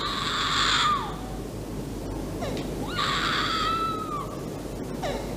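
Two high, shrill cries, each about a second long, with a falling pitch at the end of each.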